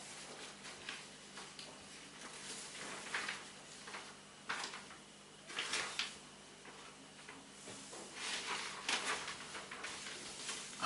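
A steady low hum with a few short, scratchy rustling or scraping strokes at irregular intervals.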